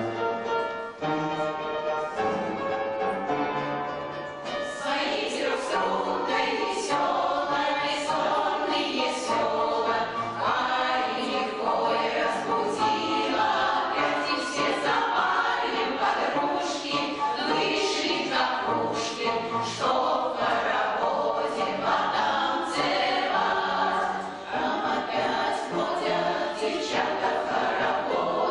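Amateur choir singing a song with instrumental accompaniment. The first few seconds are held notes, then it moves into a quicker, rhythmic passage.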